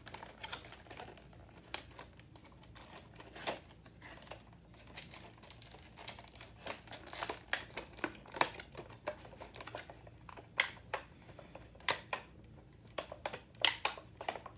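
Model locomotive's packaging being handled and pried at by hand to free the engine: irregular sharp clicks and crinkles, closer together and louder in the last few seconds.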